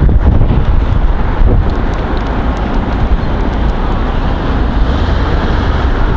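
Wind buffeting the camera's microphone: loud, uneven noise, heaviest in the low end.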